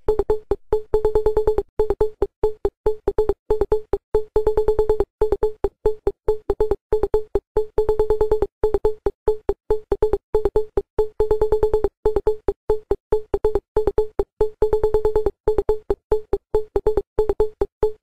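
Techno dance track: a synthesizer tone chopped into rapid stuttering on-off pulses with short gaps between phrases.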